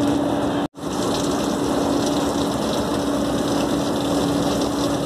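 Steady machinery hum with a constant low drone under an even hiss, breaking off for an instant less than a second in.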